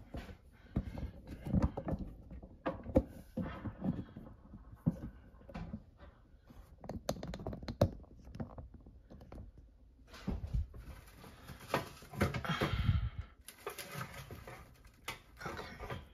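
Irregular handling noises: scattered light knocks and clicks with bits of rustling, as objects on a cabinet top, among them an artificial trailing plant in its pot, are moved about by hand.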